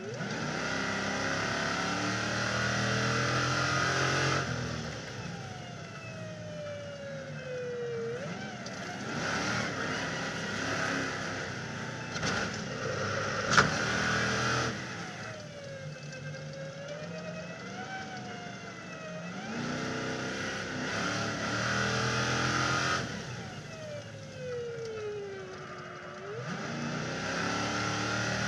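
Stadium Super Truck's V8 racing engine, heard from a roof camera, running at full throttle and then lifting off with the pitch sweeping down, several times over as it brakes for corners and accelerates out. A single sharp knock about halfway through.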